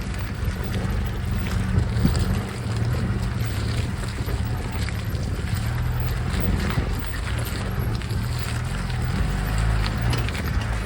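Maruti Suzuki Gypsy's engine running steadily while the vehicle is driven off-road, with scattered knocks and rattles over the engine noise.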